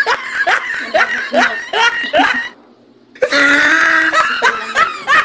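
Laughter: a run of short 'ha' bursts, about three or four a second, then a pause of about half a second and a longer drawn-out laugh.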